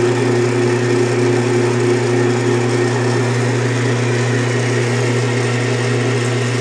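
Craftsman Atlas 12-inch lathe's freshly rebuilt electric motor driving the countershaft, belts and pulleys, running steadily just after start-up. The sound is free of grinding now that new thrust bearings keep the countershaft from riding against the side of its housing.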